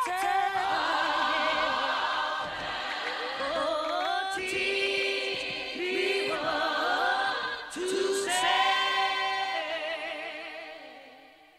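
Choir singing a slow gospel song in long, held notes, fading out near the end.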